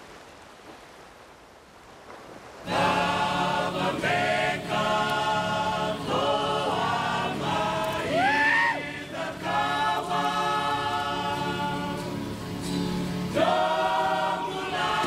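Background music: a choir of voices singing long held chords, coming in about three seconds in after a brief quieter moment.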